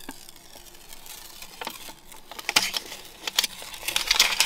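Handling noise from a self-adhesive magnetic rail being readied to stick on: light rustles and scattered ticks. They start about a second and a half in and get busier toward the end.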